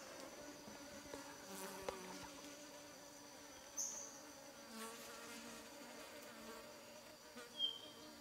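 Faint, steady buzzing and droning of insects, with a couple of short, high chirps.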